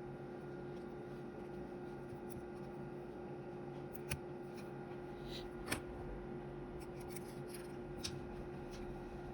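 A few light clicks and taps of small parts and screws being handled while a plastic handheld radio is being taken apart, over a steady faint hum.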